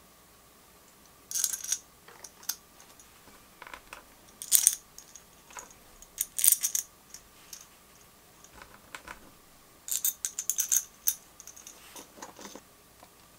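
Small metal bolts clicking and clinking against a black CPU-block mounting bracket as they are handled and fitted into its holes: several short clusters of sharp clicks with pauses between.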